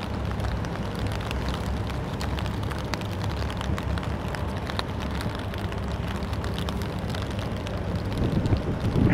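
Typhoon wind buffeting the microphone as a steady low rumble, with scattered sharp ticks of raindrops; a stronger gust swells up near the end.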